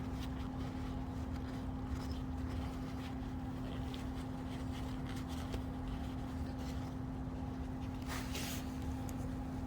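Steady low background hum with a constant tone, and a short rustle about eight seconds in.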